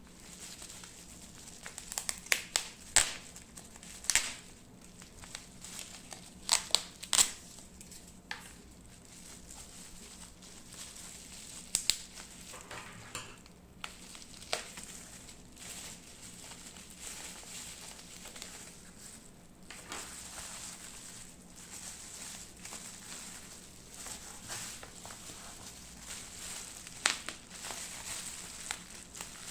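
Packaging being handled during an unboxing: crinkling and crackling with sharp clicks and taps. It is busiest in the first eight seconds and sparser after, over a steady hiss.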